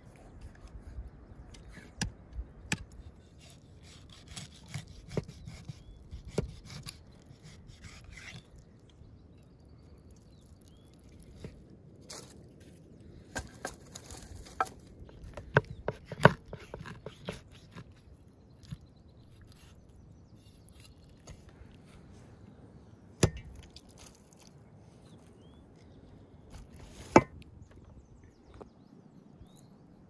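Knife chopping a whole carp into steaks on a wooden cutting board: scattered knocks of the blade through the fish onto the board, busiest midway, with two louder knocks later on.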